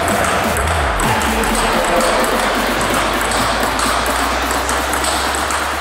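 Table tennis rally: a plastic ball clicking back and forth off a KTL Rapid Sound rubber on a Spinlord Carbon Strike blade, the opponent's bat and the table, over a steady low background.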